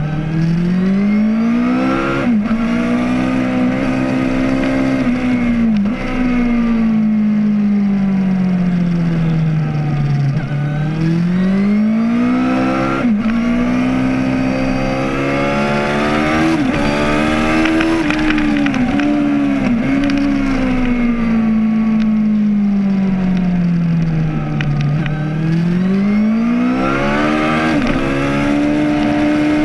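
Suzuki GSX-R 750 K5's inline-four engine at track pace, heard from a camera on the bike: the revs climb through the gears with a quick dip at each upshift, then fall away in long slides as the bike slows for corners, several times over.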